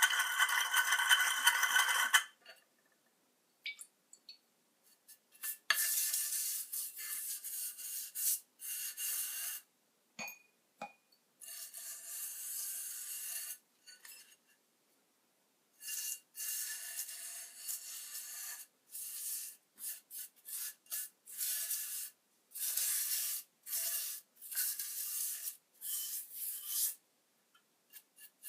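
Rubbing and scraping on hard parts in repeated bursts of one to four seconds, with light clinks, each burst cutting off suddenly.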